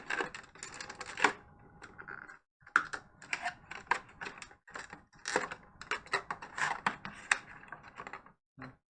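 A cardboard collection box and its packaging being handled and opened by hand: quick, irregular clicks, taps and rustles, with short pauses. The sound stops shortly before the end.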